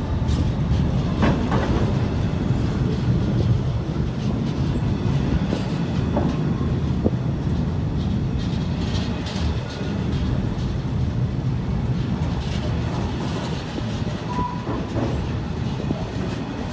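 Container freight train's loaded flat wagons rolling past close by: a steady low rumble of steel wheels on the rails with scattered clicks and clatter.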